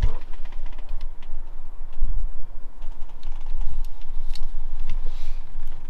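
Handling noise as a phone camera is moved around: irregular small clicks and rustling over a low rumble, with low thumps about two seconds in and again about three and a half seconds in.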